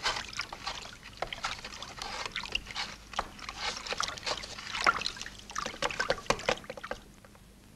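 Hand carpentry on wooden planking: a run of irregular knocks and taps of tools on timber while the wooden protective casing of a pipe joint is built. It stops about seven seconds in.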